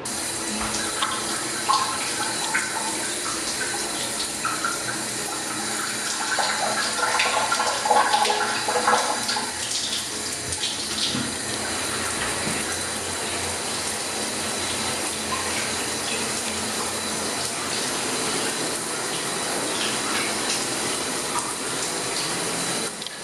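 Water running steadily from a shower panel, a continuous spray.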